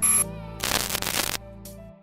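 Outro music with a short noisy burst in the middle, fading out near the end.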